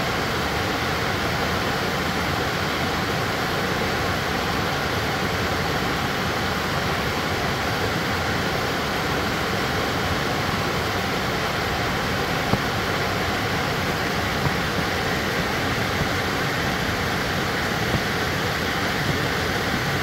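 Water rushing steadily over a rocky, multi-tiered waterfall and the rapids below it, running full after winter rains.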